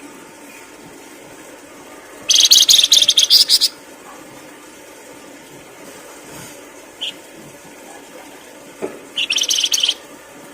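Songbird song: two bursts of fast, high, rapidly repeated chattering notes, one about a second and a half long a couple of seconds in and a shorter one near the end, with a single short chirp between them.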